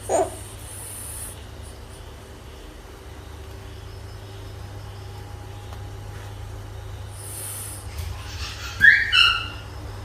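A frog calling: one short, loud, downward squawk at the start, then two short, high, squeaky cries in quick succession about nine seconds in, over a steady low hum.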